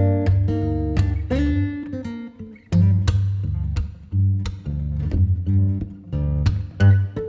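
Background music led by plucked and strummed acoustic guitar over a steady bass line.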